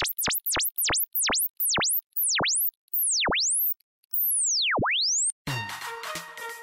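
An electronic pure tone sweeping down and back up again and again, each sweep slower than the last, ending on a rising sweep that cuts off. About five and a half seconds in, music with plucked guitar and keyboard notes begins.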